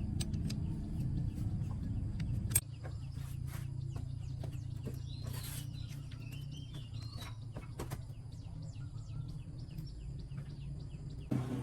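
Birds chirping in the background, with scattered light clicks and taps of hand tools on metal. Under them runs a low hum that drops after a sharp click about two and a half seconds in.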